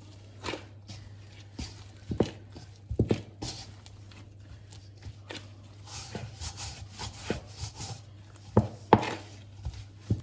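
Gloved hands kneading chapati dough in a stainless steel bowl: irregular soft thumps, squishes and rubbing as the dough is pressed and folded against the bowl, with a few louder thuds about two to three seconds in and again near the end.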